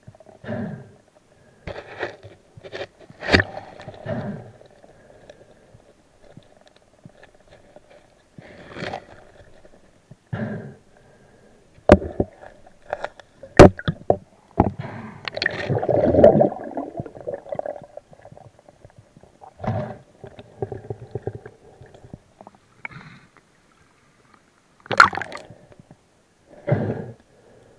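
Underwater handling noise: irregular knocks, sharp clicks and scraping as the camera and spear brush through submerged cane stems and roots, with a longer scraping rush about halfway through.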